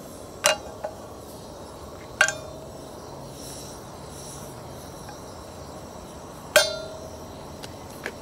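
Sharp metallic clinks at a frying pan on a propane camp stove: three loud clinks that ring briefly, about half a second, two seconds and six and a half seconds in, plus a couple of lighter ticks, over a steady hiss.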